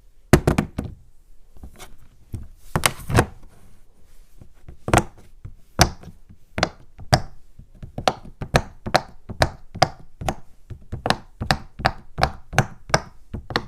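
Silicone Pop-It bubbles being pressed one after another, a string of sharp pops at an uneven pace, a few a second and coming faster in the second half.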